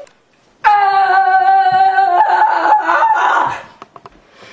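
A long held note at a steady pitch, changing to a different note about two seconds in and fading out about three and a half seconds in, after a brief silence at the start.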